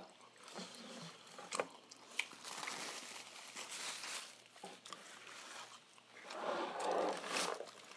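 Faint rustling and light handling of paper as the lid is lifted off a paper fried-chicken bucket, with a few soft clicks and a louder rustle near the end.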